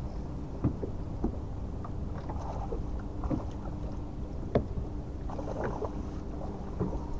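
Steady low hum of a bow-mounted electric trolling motor, with scattered short knocks on the boat, the loudest about four and a half seconds in.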